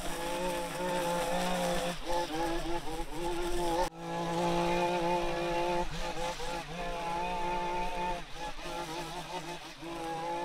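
Small petrol engine of yard equipment running steadily, its pitch wavering slightly, with an abrupt break about four seconds in.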